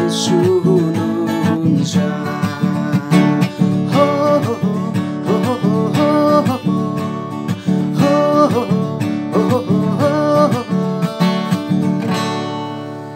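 Steel-string acoustic guitar strummed in chords, with a man's voice singing along. The playing tails off near the end as the last chord rings and fades.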